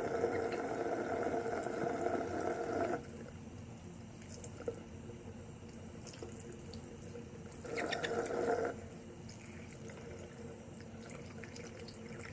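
Bathroom sink faucet running, its stream splashing as a puppy is washed and rinsed under it. Louder for about the first three seconds, then steadier and softer, with a brief louder stretch about eight seconds in.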